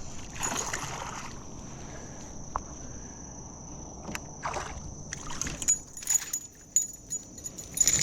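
Water sounds around a kayak on a swift creek: a few short splashes and knocks against a steady rush of current, with a thin steady high hum throughout.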